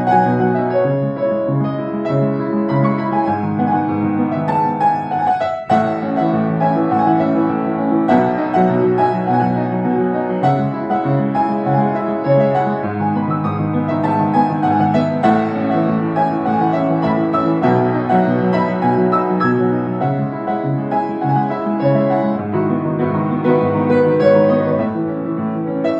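Background instrumental music led by piano, with a steady flowing melody.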